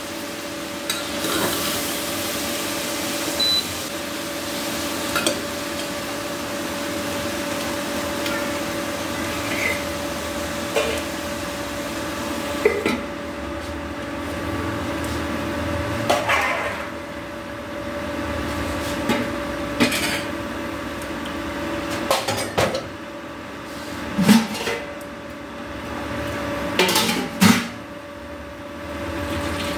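Steel pots, pans and a ladle clinking and knocking as they are handled on a gas stove, with scattered clatters, the loudest near the end, over a steady hum.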